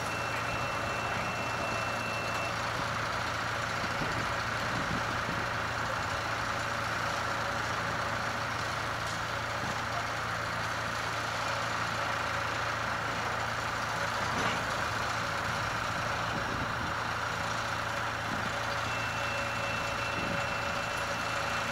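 Brandt road-rail tie train backing slowly, with the low steady hum of its engine running and a faint, steady high-pitched tone over it.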